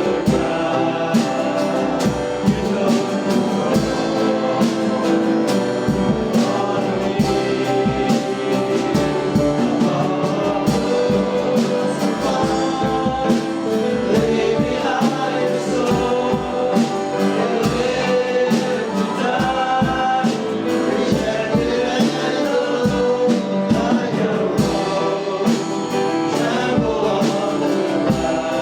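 Live church worship music: a group of singers with a band, playing a gospel-style praise song over a steady drum beat.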